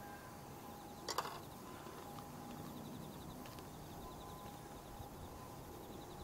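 Faint outdoor night ambience with an insect trilling in a fast, even pulse, and one sharp click about a second in.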